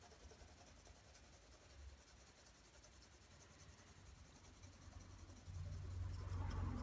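Graphite pencil held on its side shading across drawing paper: faint, soft scratching strokes. A low rumble comes in and grows louder near the end.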